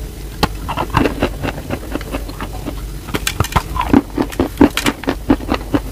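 Close-up crunching of a round slab of chalk being bitten and chewed: sharp, crisp cracks and crumbling, scattered at first and coming thick and fast from about three seconds in.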